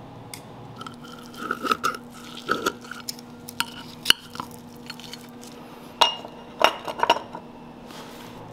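Chopsticks tapping and clinking against ceramic plates and bowls while grilled fish is picked apart, in scattered sharp clicks with a few short ringing clinks. The taps come in a cluster early on, a single sharp one about four seconds in, and another cluster around six to seven seconds.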